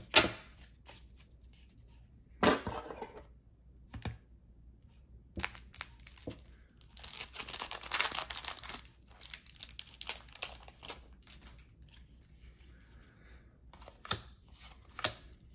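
Cellophane wrapper of a trading-card pack being torn open and crinkled. A sharp click comes just after the start, then a short burst of tearing, and in the middle a longer crackling stretch, loudest about halfway through, with a few light clicks near the end.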